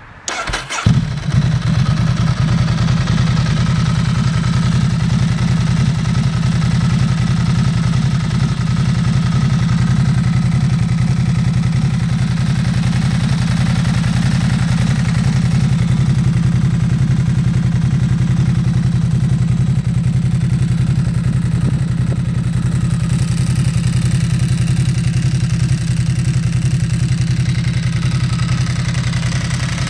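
A 2008 Ducati Hypermotard 1100S's air-cooled L-twin is cranked on the starter, catches within about a second, then idles steadily through twin Termignoni carbon-fibre slip-on mufflers.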